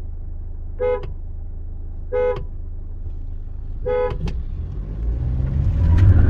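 Car horn sounding three short toots about a second and a half apart, a countdown to start the drag race. Right after the third, the Hyundai Tucson's engine and road noise build up in the cabin as it launches hard in sport mode.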